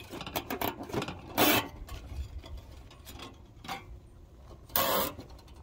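Nylon zip ties being pulled tight through their locking heads: a short ratcheting rasp about a second and a half in and another near the end, with small clicks and rustling between.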